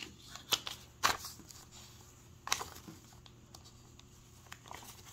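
Paper dollar bills being picked up and handled: a few short, crisp rustles, the sharpest about a second in, between quiet stretches.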